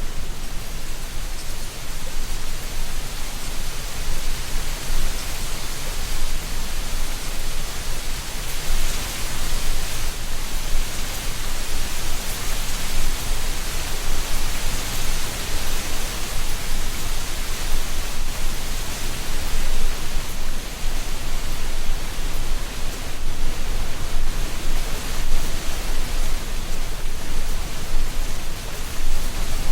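Wind blowing through a tree canopy, rustling dry autumn leaves in a steady hiss that swells a little in the middle.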